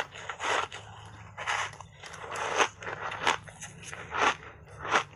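Block ice coated in matcha powder being crunched between the teeth while chewing: about six sharp crunches, roughly one a second.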